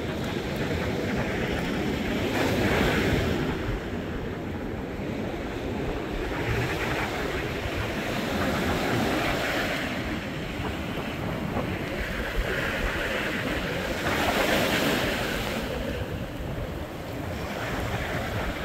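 Rough sea surf surging in waves, swelling louder about three times, with strong wind buffeting the microphone.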